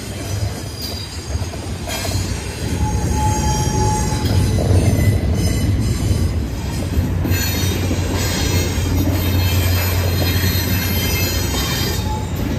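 Double-stack intermodal well cars of a freight train rolling past close by: a steady low rumble of wheels on rail, with wheel squeal coming and going, including a brief thin squeal about three seconds in.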